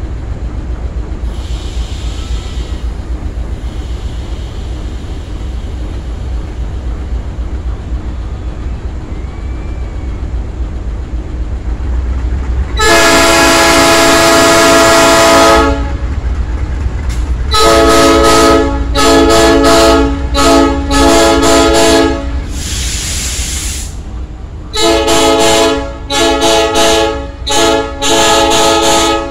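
Diesel locomotive's multi-tone air horn, sounding one long blast about halfway through, then five short blasts, a brief hiss, and four more short blasts, all loud. Under it runs the steady low rumble of the slowly passing train.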